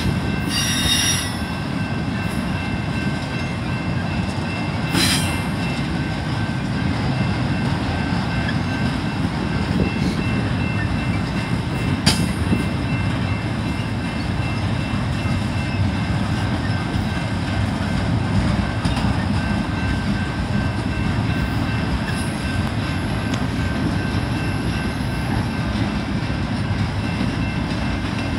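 Double-stack container train rolling past: a steady rumble of wheels on the rails, with a faint, steady high-pitched wheel squeal above it and a few sharp clanks, about 1, 5 and 12 seconds in.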